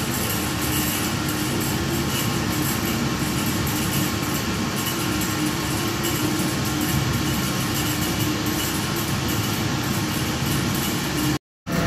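Steady mechanical rush and hum of running steam-distillation equipment, with a constant low tone and no let-up. The sound cuts out for a split second near the end.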